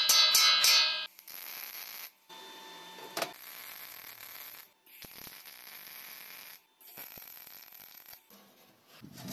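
Arc (stick) welder tack-welding a thin sheet-steel box: the steel rings with a metallic clatter in the first second, then the arc crackles and hisses in four bursts of one to two seconds each, with short pauses between tacks and a sharp clang about three seconds in.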